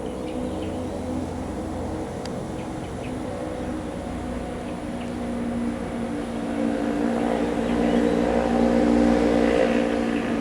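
Diesel engine of a KTM Class 26 'Blue Tiger' diesel-electric locomotive running with a steady drone, growing louder over the second half.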